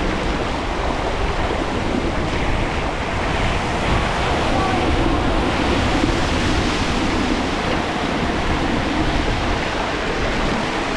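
Water spray hissing and splashing steadily as the fat tires of a Himiway Zebra electric bike ride through standing floodwater on a road, with a passing car's tires throwing up more spray partway through.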